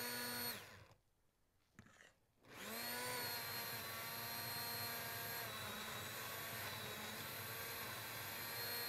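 Commercial immersion blender pureeing a pot of cooked winter squash soup. Its motor whine falls away and stops about half a second in. After a short silence it starts again about two and a half seconds in, rising as it comes up to speed, and then runs steadily.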